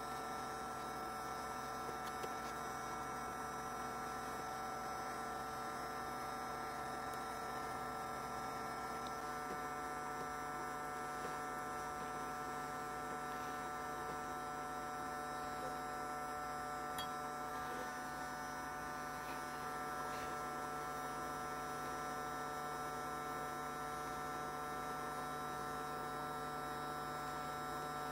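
8018LCD hot air gun's fan motor running with a steady hum as it blows hot air. About nine seconds in, its low tone steps slightly higher.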